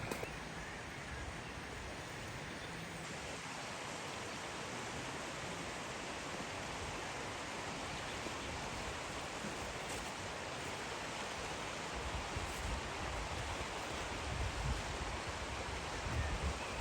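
Steady rushing outdoor background noise. Low wind gusts buffet the microphone in the last few seconds.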